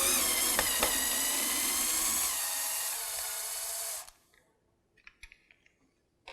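Cordless drill with a Phillips bit running in reverse, backing out the screw that holds a window sash's tilt latch. The motor runs as a steady whine for about four seconds, sagging slightly in pitch before it stops suddenly. A few faint clicks follow.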